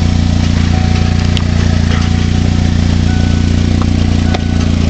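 Ford Mustang SVO's 2.3-litre turbocharged four-cylinder engine running steadily with the car in gear on stands and the driveline spinning, heard from underneath the car, with a few light clicks. It carries the driveline noise that the owner suspects comes from a failing torque converter.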